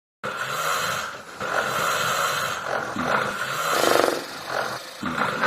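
A person snoring, a string of snores one after another, with a buzzing rattle in one snore about four seconds in.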